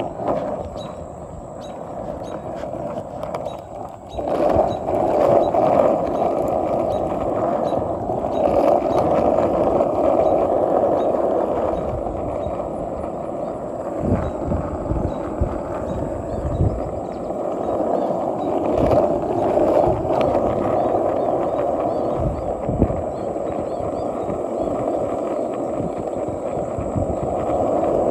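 Walmart skateboard with plastic trucks and new bearings rolling down an asphalt path: a steady rolling rumble of the wheels on the rough pavement, with a few low thumps along the way.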